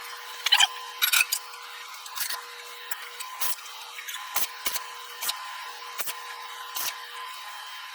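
Scattered sharp clicks and taps of tools and metal parts being handled, coming at irregular intervals over a faint steady hum.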